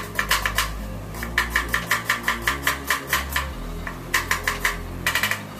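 Chef's knife finely chopping an onion on a wooden cutting board: quick runs of sharp taps, about six a second, broken by short pauses.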